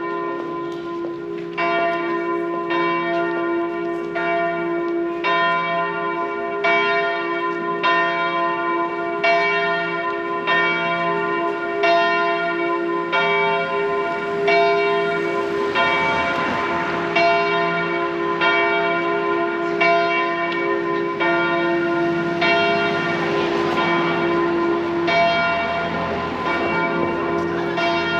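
Tower bells of the Augustinerkirche swinging and ringing. The strokes come about once a second and overlap, over a steady hum that carries from each stroke to the next.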